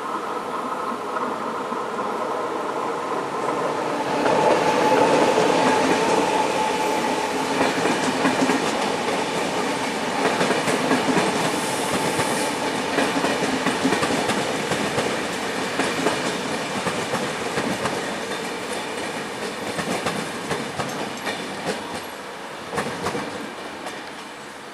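Two diesel locomotives of a work train passing, their engines running steadily under load, with wheels clicking over the rail joints. The sound swells about four seconds in and fades slowly toward the end as the train moves away.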